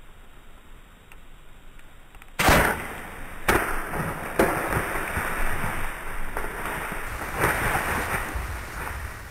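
A sudden loud crack, followed by continuous crashing and rustling noise with several sharper knocks.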